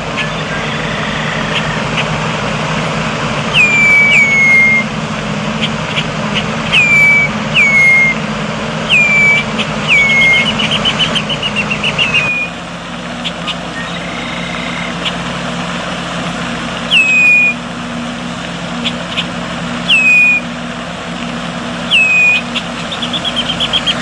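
Red-winged blackbird giving loud down-slurred whistled calls, about ten of them spaced a second or more apart, with a fast run of rapid notes twice, over a steady low hum.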